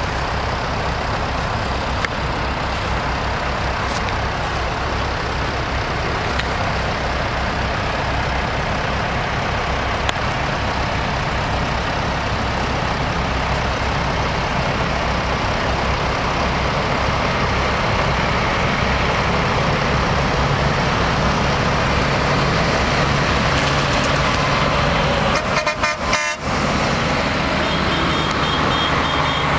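Engines of a slow parade of tractors, cars and a fire engine running close by, a steady drone with horns tooting. A high, rapidly repeated beeping starts near the end.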